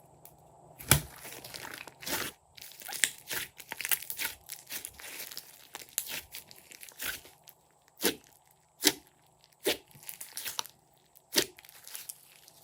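Slime being pressed, stretched and squeezed by hand, giving irregular sticky pops and crackles, some sharp and loud, with quieter crackling between them.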